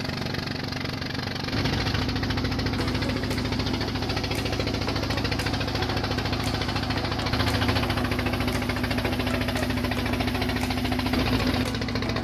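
A small boat engine running steadily with a rapid, even beat, getting louder about a second and a half in.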